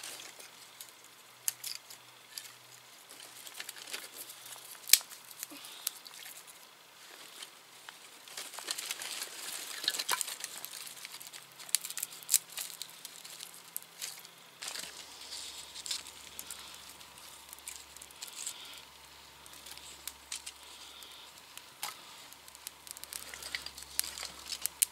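Small wood campfire crackling, with irregular sharp pops and snaps of burning twigs over a steady hiss.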